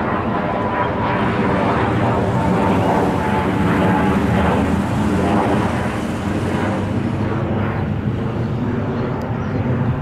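A steady engine drone made of several hum tones at once, easing off a little in the second half.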